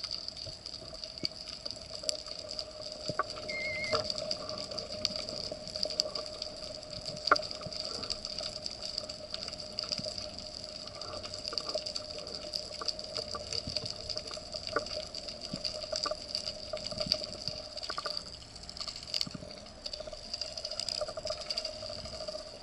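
Underwater ambience: a constant fine crackle of small clicks over a steady hum, with one sharper click about seven seconds in.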